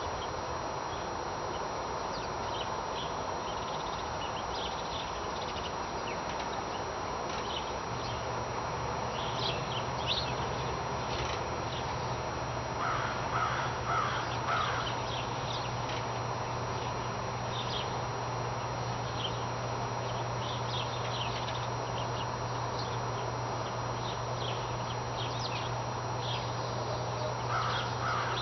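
Outdoor morning ambience: a steady background haze with scattered high bird chirps, a short run of harsh bird calls about halfway through and again at the end, and a low steady hum that comes in just under a third of the way in.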